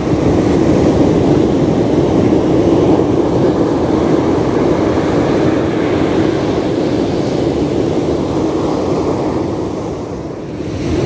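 Steady roar of ocean surf breaking on a sandy beach, easing slightly near the end.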